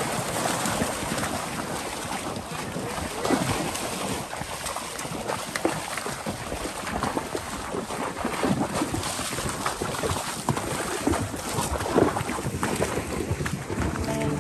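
Cattle and a horse walking through snow and slushy ice water: many hooves crunching and splashing irregularly, with wind on the microphone. A couple of louder knocks stand out, about three seconds in and near the end.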